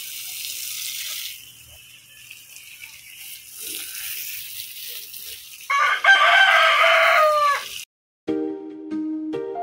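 A rooster crows once, a loud call of about two seconds that falls in pitch at the end, after a hiss of running water in the first second. Plucked ukulele music starts near the end.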